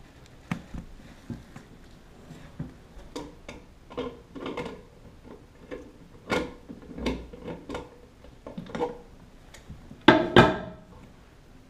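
Scattered clicks, taps and knocks of a hand tool and bolt hardware against a porcelain toilet while a tank-to-bowl bolt is being loosened, with one louder clunk near the end.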